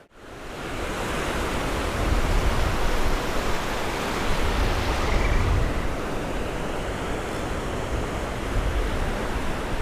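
Ocean surf washing over the shallows in a steady hiss, with a low wind rumble on the microphone. It fades up from near silence over the first second.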